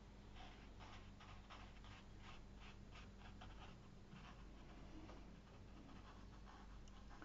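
Faint scratching of a paintbrush dabbing and stroking on watercolour paper: a quick run of light strokes, about three or four a second, that fades after about four seconds. A low steady hum runs underneath.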